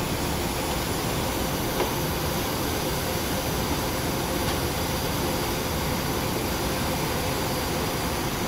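Steady background noise, an even hiss and low rumble with no rhythm or pitch, of the kind left by air conditioning or ventilation. A faint tick comes about two seconds in.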